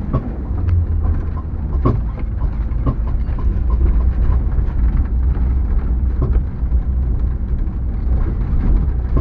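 A vehicle driving over a bumpy dirt road, heard from inside the cab: a steady, deep drone of engine and tyres, with scattered short knocks and rattles as it jolts over the ruts.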